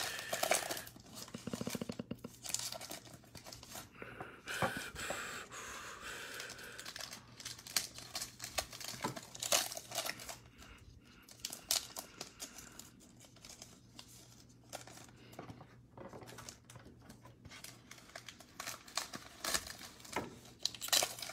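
Foil trading-card pack wrappers crinkling and being torn open, with the cards handled between packs; irregular crinkles and rips.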